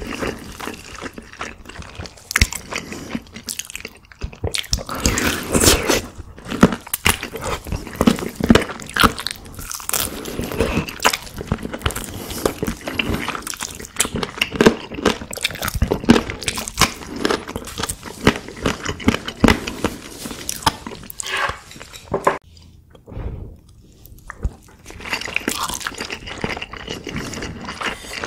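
Close-miked biting and chewing of a barbecue-glazed chicken drumstick: wet mouth sounds, with meat tearing and crunching. It goes quieter for a couple of seconds about three-quarters of the way through.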